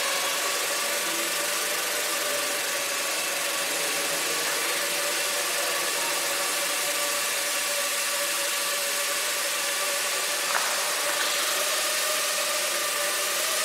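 Small quadcopter's electric motors and propellers humming steadily in flight, a steady pitch over a broad hiss, with one brief click about ten seconds in.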